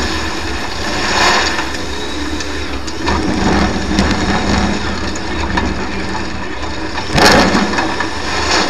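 Offroad race car's engine running hard, heard from inside the cabin, with surges of noise and sharp knocks as the car is driven over rough ground; the loudest surge comes about seven seconds in.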